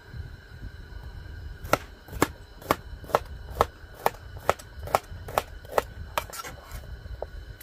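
A kitchen knife slicing a bitter melon on a plastic cutting board: about a dozen sharp, even chops, roughly two a second, starting just under two seconds in and tailing off near the end.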